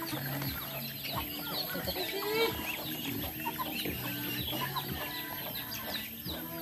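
A flock of chickens clucking as they crowd around scattered feed, with chicks peeping in many quick, high, falling chirps.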